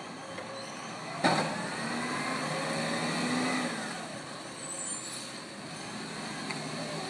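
Garbage truck's air brakes releasing with a sudden hiss about a second in, then its engine revving up with a rising pitch as the truck pulls away, fading after a few seconds.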